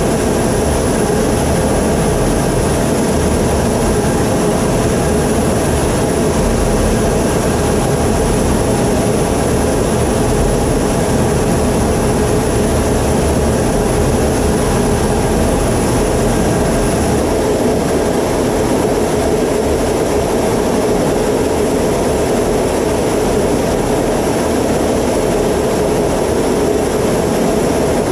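Steady jet engine and airflow noise heard inside a fighter jet's cockpit in level flight, with a constant high whine over the rush.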